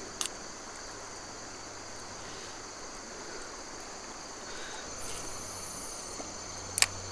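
Insects trilling steadily in two high-pitched bands over the low hiss of flowing river water, with a couple of brief sharp clicks.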